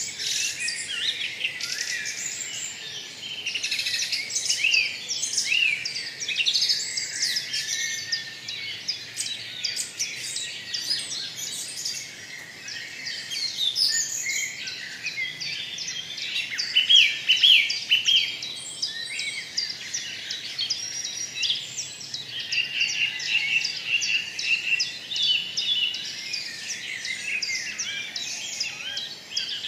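A chorus of small birds chirping and singing: many quick, overlapping calls.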